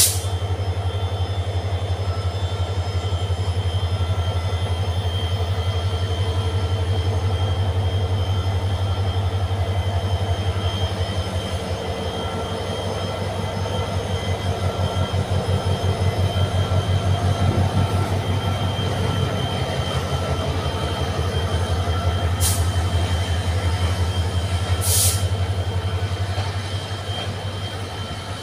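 Diesel-electric locomotive of an intercity passenger train running under power as it passes close by and accelerates: a loud, steady low engine drone with a thin high whine over it. A sharp clack sounds at the start and twice near the end, and the drone eases off near the end as the coaches roll past.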